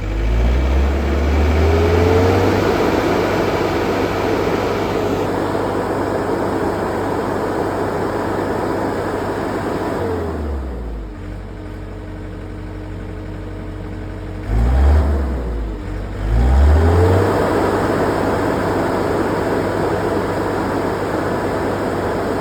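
A John Deere 320 skid steer's diesel engine is revved up on the throttle and held at high speed. About ten seconds in it drops back toward idle. It then rises again in two steps and holds high.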